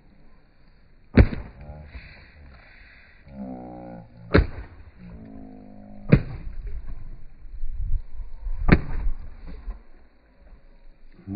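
A golf iron whacking water-filled plastic bottles: four sharp, loud hits at uneven intervals, each a bottle bursting under the club.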